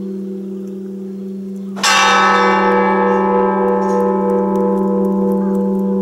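Orthodox church bell struck once about two seconds in, ringing out with a long, slowly fading tone over the steady hum of bells already sounding.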